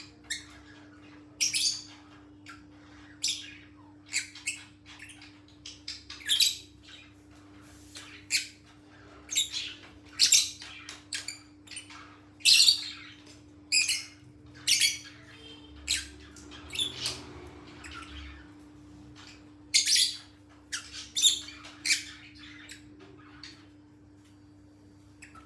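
A bird making short, sharp, high-pitched squawks and chirps at irregular intervals, about one or two a second, thinning out near the end. A steady low hum runs underneath.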